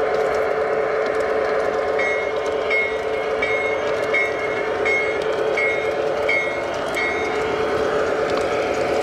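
G-scale LGB model train running with a steady motor and gear hum. From about two seconds in, a high, bell-like ding repeats eight times, a little under a second apart, then stops.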